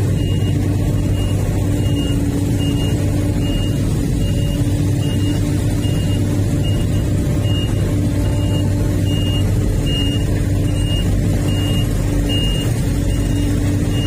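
Sumitomo excavator's diesel engine running steadily under load while it swings and dumps earth, with a short high warning beep repeating about every 0.7 s.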